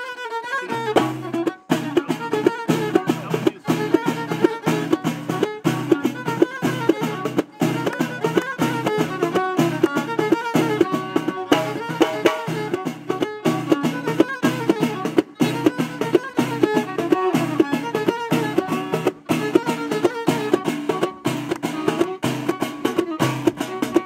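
Violin held upright on the knee and bowed in a melody over hand-held frame drums beating a steady rhythm.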